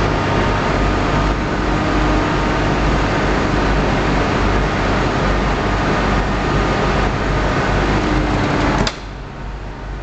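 Vertical baler's hydraulic pump unit running with a steady mechanical drone and hum. About nine seconds in it stops with a click and the noise drops sharply.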